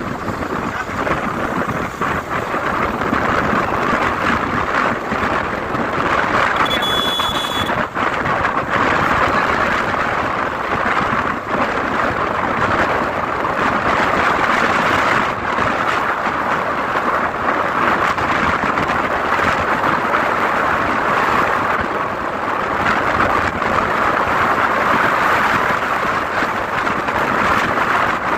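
Steady rushing road and wind noise of a moving vehicle on the highway, with a brief high tone about seven seconds in.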